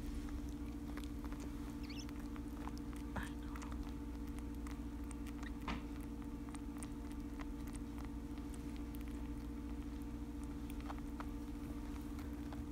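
Baby cottontail rabbit suckling formula from a miracle nipple on a feeding syringe: faint irregular wet clicks and smacks, over a steady low hum.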